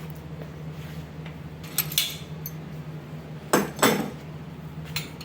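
Steel parts of a metal bender and a clamped round steel rod being handled, giving scattered light metal clinks, with two louder clanks in quick succession about three and a half seconds in. A steady low hum runs underneath.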